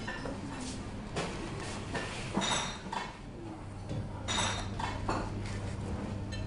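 Light clatters and knocks of a fast-food meal being handled on a table: plastic tray, paper drink cup and cardboard burger box. A low steady hum comes in about four seconds in.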